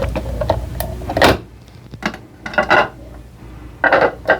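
A few short knocks and clatters of objects being handled, with a low hum that stops about a second in.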